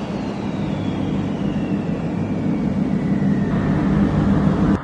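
Sports car engine running with a deep, steady drone that grows louder toward the end, over a faint high whine slowly falling in pitch.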